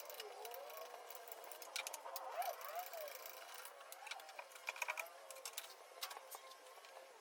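Scattered sharp clicks and clinks of hand tools working on metal in a car's engine bay, over a faint wavering voice in the background.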